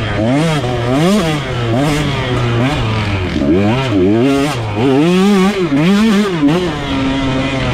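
KTM two-stroke dirt bike engine being ridden on a trail, its pitch rising and falling again and again as the throttle is opened and closed, holding steady briefly near the end.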